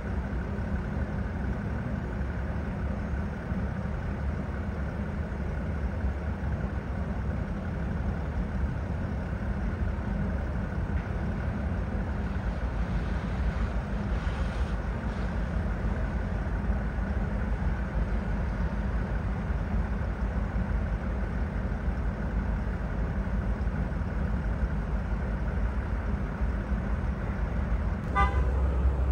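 Low, steady rumble of new GM full-size SUVs idling and rolling slowly out of the assembly plant, with a faint steady hum above it; the rumble grows louder near the end.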